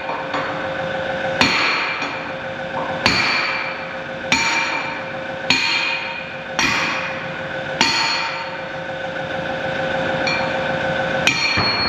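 Hammer blows on steel during pin work on a bulldozer blade, one about every second and a bit, each leaving a metallic ring. After a short pause there is one more blow near the end.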